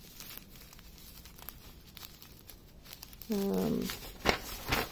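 Small plastic zip-lock bag of diamond-painting drills crinkling and rustling as it is handled: faint at first, with a few sharper crinkles near the end. About three seconds in, a woman gives a short falling hum.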